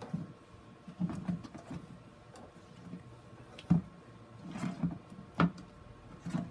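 A plastic grid mounting board is shifted and turned on a plastic box with gloved hands, making soft rustling and scraping and several sharp plastic clicks and knocks, the loudest a little past the middle.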